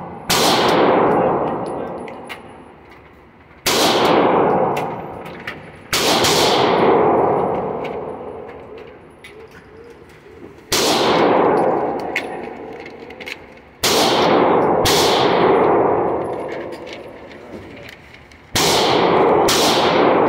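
Seven gunshots at irregular intervals in an indoor shooting range, each a sharp crack followed by a long echo off the walls and ceiling that dies away over about two seconds.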